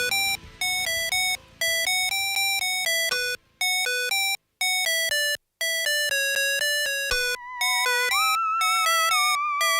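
Background synth music: short, bouncy staccato notes, with a held, wavering lead melody coming in about seven seconds in.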